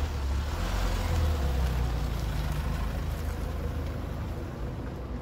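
A vehicle engine running in the street: a low steady hum, loudest over the first few seconds and then easing off.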